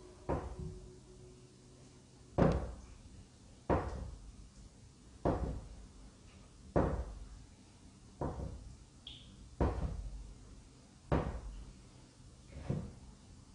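Slow, evenly spaced heavy thuds, about one every second and a half, nine in all, each with a short echo, taken for footsteps in the empty building.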